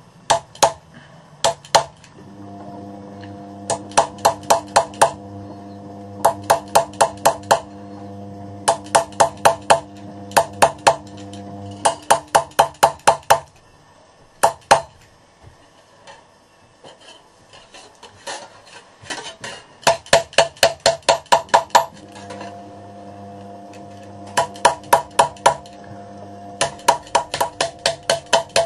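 Coppersmith's hammer striking copper in quick runs of about five blows a second, two to eight blows at a time, with short pauses between runs. Steady held tones sound underneath through much of it.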